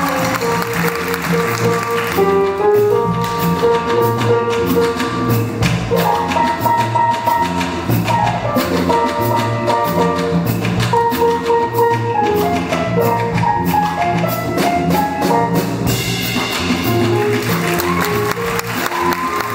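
School jazz band playing: saxophones and brass carrying the tune over a drum kit keeping a steady cymbal beat.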